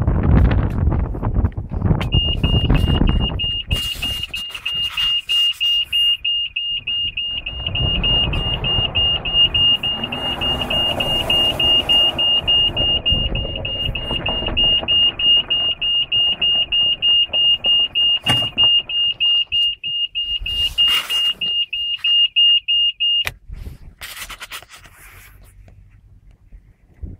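Malex electric golf cart's reverse warning buzzer sounding as one steady high-pitched tone with a slight flutter, starting about two seconds in and cutting off near the end; it signals that the cart is in reverse.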